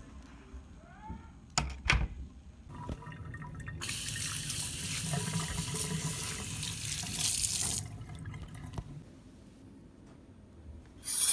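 Water running for about four seconds, with a few sharp knocks shortly before it starts and a brief hiss near the end.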